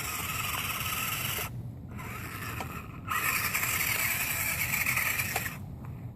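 Small electric motor and geartrain of an ECX Temper 1/18 RC crawler whining under throttle in two pulls of about two to three seconds each, with a short pause between. The truck is straining on an icy slope it lacks the power to climb.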